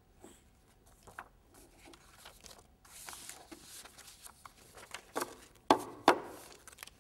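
Handling noises: rubbing and scraping with small clicks, then two sharp knocks in quick succession near the end.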